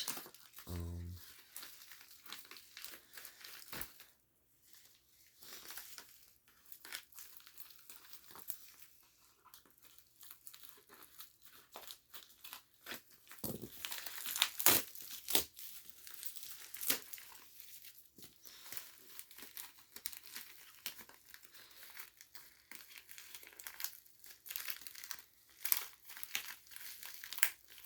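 Cardboard box and packaging of a smoke alarm being opened by hand: irregular crinkling, rustling and tearing with scattered sharp crackles.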